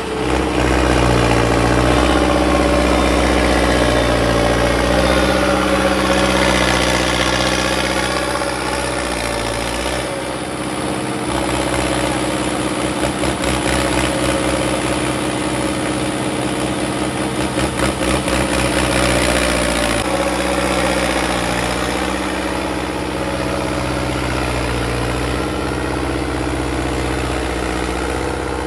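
Hindustan 60 tractor's diesel engine running steadily. The sound changes about ten seconds in to a rapid, even pulsing with less low rumble, then returns to the steady run about twenty seconds in.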